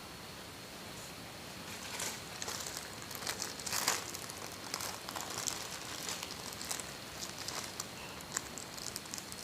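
Close-miked eating sounds of siomay: a run of fine, wet, crackly mouth clicks while chewing, loudest about four seconds in, over a faint steady high whine.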